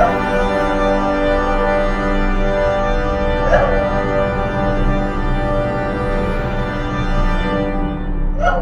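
Music: a sustained organ chord held throughout, with two short, brighter sounds laid over it, one about three and a half seconds in and one near the end.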